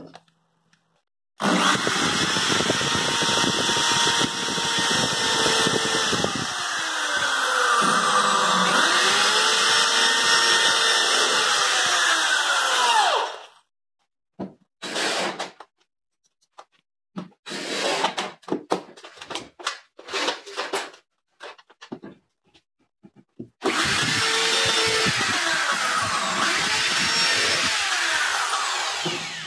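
Corded electric drill boring holes through a wall cabinet's base panel at marked spots, into the support blocks behind it. It makes two long runs, the motor's pitch sagging and recovering as the bit bites, with short stop-start bursts of the drill in between.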